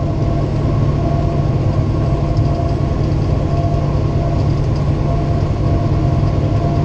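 Steady drone of a car being driven at road speed, engine and tyre noise heard from inside the cabin.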